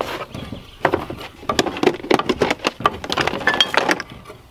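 Kitchen knife chopping a hot link sausage on a wooden cutting board: a quick, irregular run of knocks that starts about a second in and stops shortly before the end.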